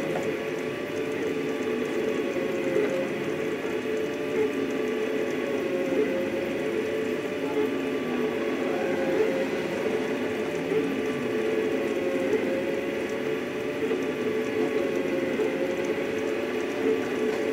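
Rostock delta 3D printer running a fast print: its stepper motors whine steadily in several tones that waver slightly in pitch as the print head darts around.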